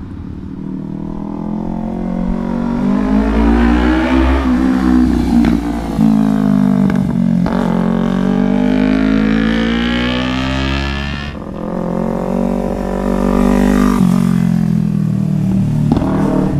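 Kawasaki Ninja 300 parallel-twin engine through an MGP Growler aftermarket exhaust, revving: the pitch climbs, drops sharply and climbs again several times, with a few sharp pops as the revs fall.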